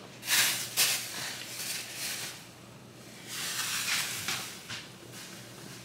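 Kitchen clean-up sounds: short hissing, rustling swipes, one longer about three seconds in, and a few light knocks.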